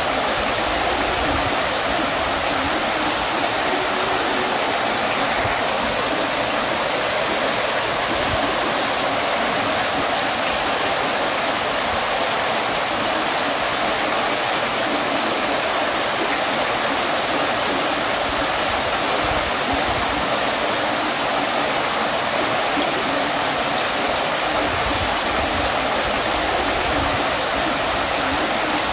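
Water fountain splashing and falling steadily, an even, unbroken rush of water.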